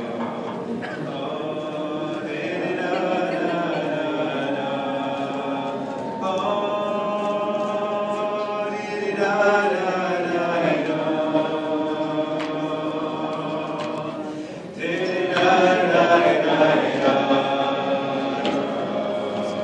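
A roomful of people singing a wordless Jewish niggun together, many voices on drawn-out syllables. After a brief breath about fourteen seconds in, the singing swells louder.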